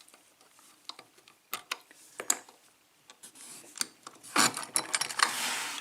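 Light metal clicks and scraping as a just-picked euro cylinder lock and its picking tools are handled, with a louder rubbing, scraping stretch in the last second and a half.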